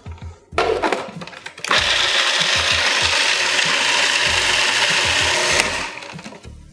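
Cuisinart food processor grinding toasted walnuts: a brief burst about half a second in, then the motor runs steadily for about four seconds and winds down.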